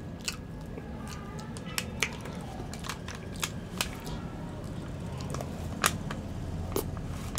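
A person eating: scattered small clicks and taps of chewing and handling the food, over a low steady hum.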